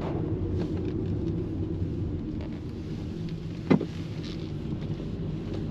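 Car driving, with steady low road and engine rumble inside the cabin, and one sharp click or knock about two-thirds of the way through.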